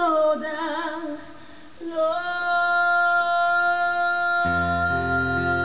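Live duo: a woman's voice sings a wavering phrase, then holds one long steady high note. Acoustic guitar comes in with a strummed chord about four and a half seconds in.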